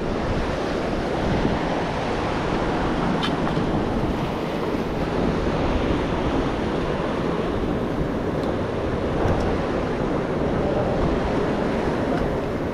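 Steady rush of surf breaking against jetty rocks, with wind buffeting the microphone.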